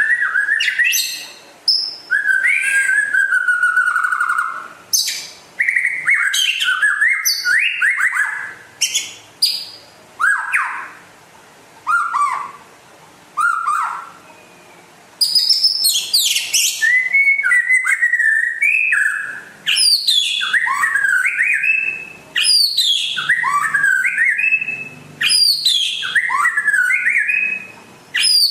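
White-rumped shama (murai batu) singing: a long run of varied whistled phrases with quick rising and falling glides, separated by short pauses at first and running almost without a break in the second half.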